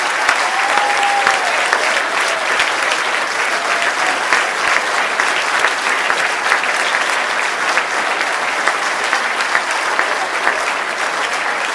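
Large banquet audience applauding, a dense, steady clatter of many hands clapping.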